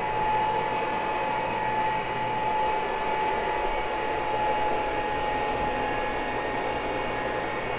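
Carpet cleaning machine running steadily, a constant motor noise with a steady whine and a low hum.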